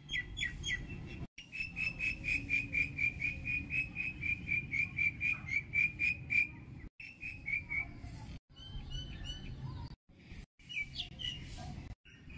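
Birds calling in open country. One bird repeats a short, clear note about four times a second for several seconds, and later come scattered shorter chirps. A low, steady rumble runs underneath, and the sound cuts out abruptly several times.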